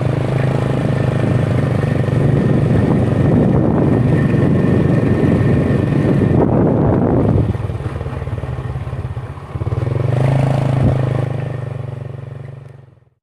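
A motorcycle engine running steadily, easing off about halfway through and picking up again near the end before fading out.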